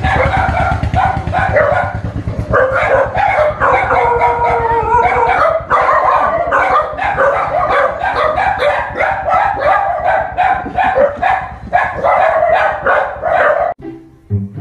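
A dog barking over and over, with some howling and yipping mixed in; the barking stops abruptly near the end.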